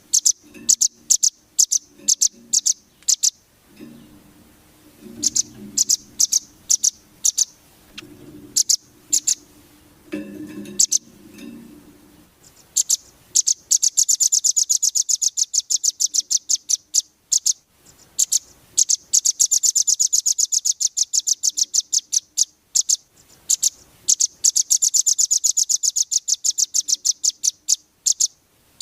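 Velvet-fronted nuthatch (rambatan) calling: sharp, high chips in short clusters, then from about halfway a long, fast trill of chips, repeated after a short break near the end. A faint low rumble sits under the first part.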